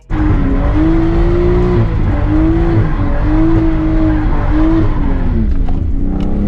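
Car engine running hard at high revs, its pitch wavering up and down and dropping away near the end.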